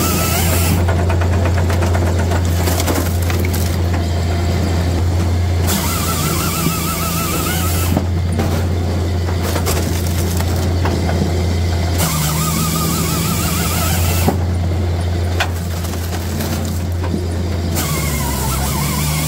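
Japa 405 firewood processor running with a steady drone from its power unit and hydraulics. Spells of hiss with a wavering whine come at the start, about a third of the way in, around two-thirds of the way in and near the end, as the saw cuts through the log. Split firewood knocks and clatters in the splitter and trough.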